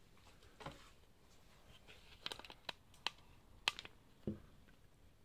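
Faint handling noises: a few scattered light clicks and soft rustles, most of them between about two and four seconds in.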